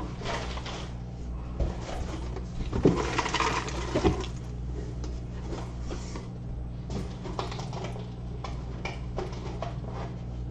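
Cardboard shipping box and packing being handled: irregular rustling, scraping and knocks, busiest and loudest about three to four seconds in, over a steady low hum.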